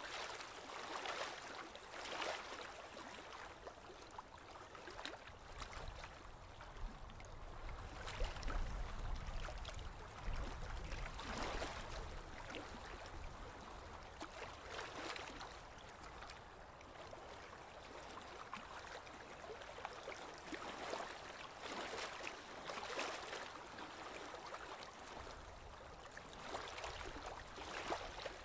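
Water splashing and lapping against the hull of a slowly moving boat, in irregular swishes every second or few. A low rumble comes and goes underneath.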